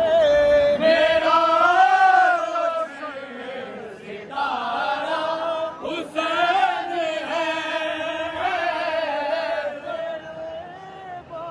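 Male voices chanting a devotional qasida in long, drawn-out melodic lines, several voices singing together. There is a short break about four seconds in.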